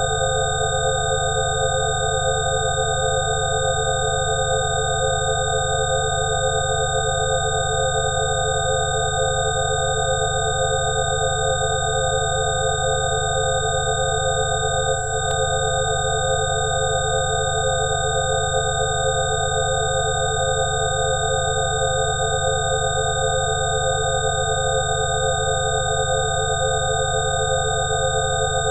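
Several steady electronic sine tones layered into one unchanging drone, a 'healing frequency' tone track, with a slight pulsing in some of the tones over a low steady hum. A faint click about halfway through.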